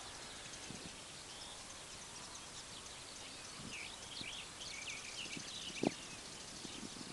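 Small birds chirping and singing in quick short notes, busiest about halfway through, over a faint steady hiss. Scattered soft knocks, with one sharper knock near the end.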